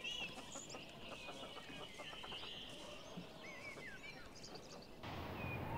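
Faint birdsong: many short, quick chirps and trills. About five seconds in it gives way to a steady hiss.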